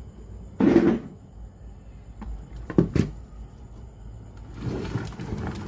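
Handling noises at a workbench: a short loud scrape or knock about half a second in, two sharp clicks around three seconds, then rustling and another click near the end.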